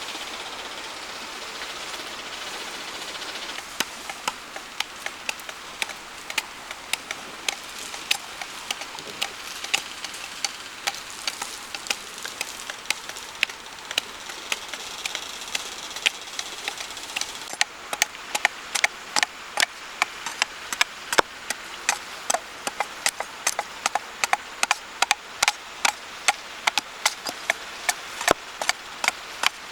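Repeated sharp strikes of a hand tool on wood, as in chopping or chiselling timber, starting a few seconds in at about one a second and quickening to about two a second about halfway through, over a steady outdoor hiss.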